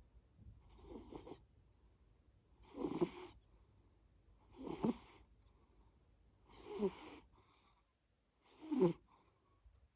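A sleeping pet snoring: five short snores, roughly one every two seconds, each with a pitch that shifts up and down.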